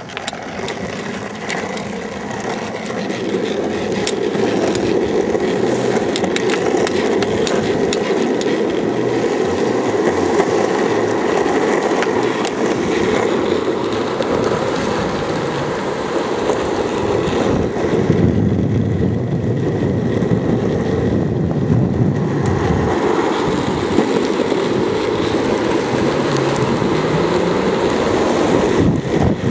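Longboard wheels rolling fast on asphalt, a steady rolling roar mixed with wind rushing over the microphone, with a deeper rumble for a few seconds past the middle.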